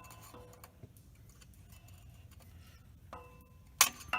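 Hammer striking the end of a screwdriver, driving it into a stuck part to work it out: a faint metallic ring just after the start, then three sharp strikes near the end, the last two loudest, each leaving a short ringing tone.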